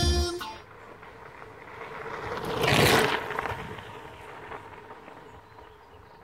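The last of the background music fades out, then a bicycle passes close by, its tyres rolling over loose gravel. The sound swells to a peak about three seconds in and fades as the bike rides away.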